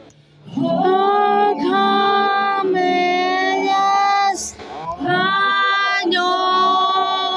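A high solo voice singing a slow melody in long held notes, with a short break and a breath about halfway through.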